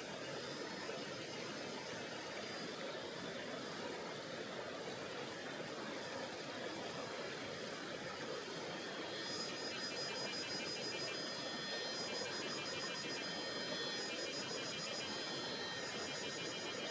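Tonghou River's water flowing steadily over its bed, a constant rushing. About nine seconds in, a high, rapidly pulsing trill joins in and runs on over the water.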